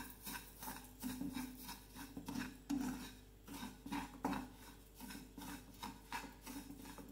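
A wooden spatula scrapes and stirs dry semolina (rava) in a pan, making repeated short scratching strokes as the grains are roasted in ghee.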